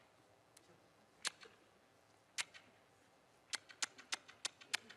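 A quiet pause broken by faint, sharp clicks: three spaced out, then a quick run of about seven in the last second and a half.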